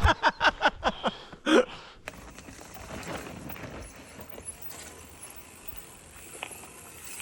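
A short burst of laughter, then about two seconds in, a mountain bike coasting over rock: the rear hub ratchet ticking over a steady hiss of tyre noise.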